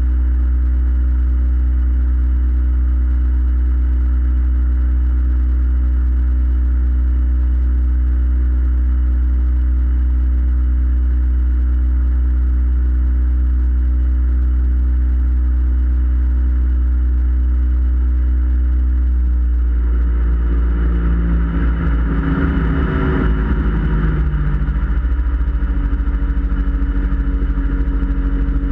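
Small boat's outboard motor running steadily under way. About twenty seconds in its note shifts and a brief rush of noise rises and fades.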